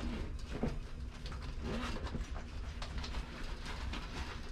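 Rustling and light knocks of a fabric travel organizer bag being handled and stuffed into a rolling suitcase's compartment, with a couple of short, faint low hums.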